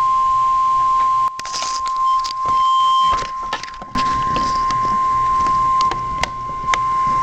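Weather-radio alert tone of the Emergency Alert System: one steady, loud, high beep at about 1050 Hz, the attention signal that announces an incoming severe thunderstorm warning. Between about one and four seconds in it weakens under a scatter of clicks and rustling.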